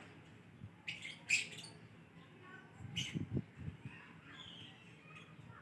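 A small pet bird pecking at rice, giving a few sharp clicks about a second in and again about three seconds in, with soft chirps scattered throughout. A few low thumps come around three seconds in.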